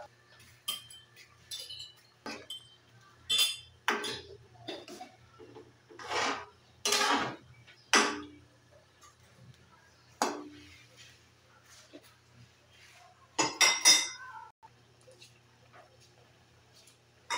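Metal ladle scraping and clinking against a metal wok while stirring a saucy braise, in irregular strokes with pauses between them and a quick cluster of strokes near the end.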